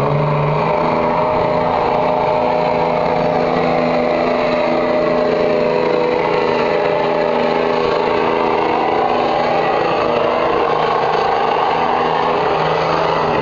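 Diesel pickup truck engine running hard at a steady, near-constant pitch while it drags a truck-pull sled down the track.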